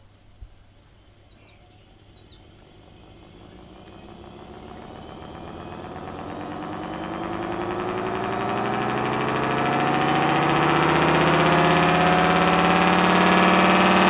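Homemade belt-driven single-rotor air raid siren spinning up: a click about half a second in, then a wail that climbs steadily in pitch and loudness and levels off over the last few seconds. Its motor is too weak to bring it up to full noise.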